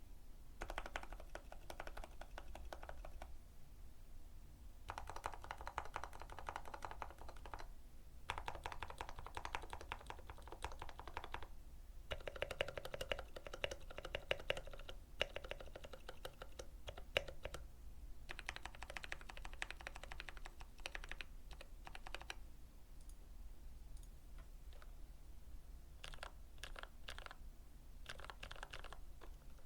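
Keychron K8 mechanical keyboard with lubed brown tactile switches being typed on: runs of quick keystrokes a few seconds long separated by short pauses, thinning to a few single key presses near the end.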